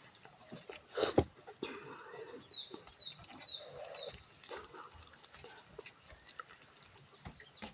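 Close-up eating sounds of a person chewing and smacking on rice with nettle curry, with a sharp click about a second in. A bird chirps a quick run of short falling notes in the background midway.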